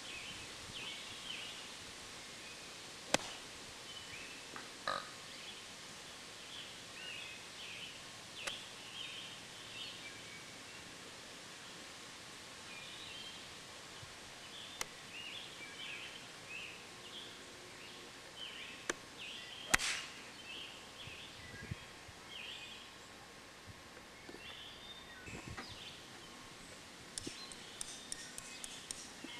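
Two sharp clicks of a golf club striking a ball, about sixteen seconds apart, over birds chirping steadily.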